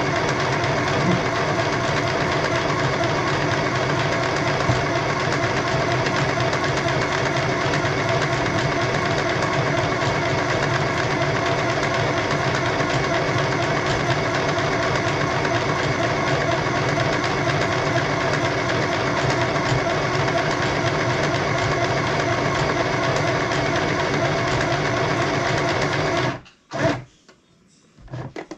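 Compact electric sewing machine running steadily at speed, its needle stitching through a sheet of paper. It stops abruptly a couple of seconds before the end, then gives one short burst.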